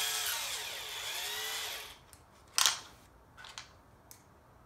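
Cordless drill-driver whining as it backs out the screws of a plastic receiver box, its pitch dipping and rising, then stopping about two seconds in. A sharp clack follows, then a few lighter clicks.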